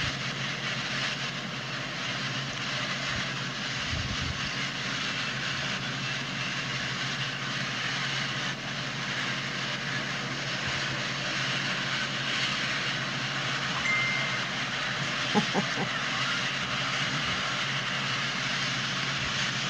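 A long double-stack intermodal freight train rolling past, its container cars making a steady rumble and rush of wheels on rails. A brief thin squeal a little past the middle, then a few sharp clicks.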